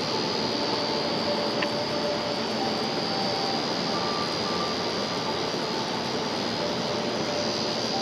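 Steady rushing roar of stream water picked up with the camera submerged in a clear mountain stream, with a thin, steady high whine running through it.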